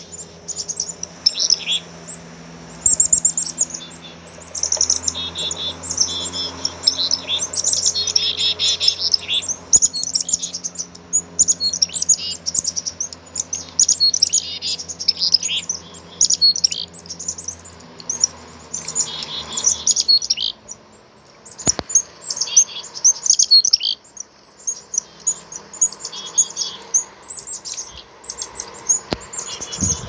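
Black-capped chickadees chirping and calling in quick high notes, almost without pause. Beneath them is a faint low steady hum that fades out about two-thirds of the way through.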